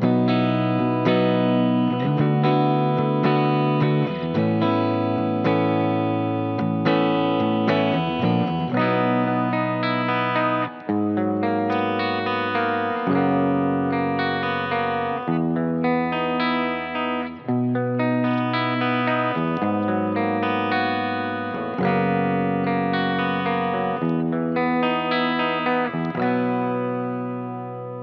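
Gibson SG Faded T electric guitar played with distortion and effects over a backing track with a bass line. The music fades out near the end.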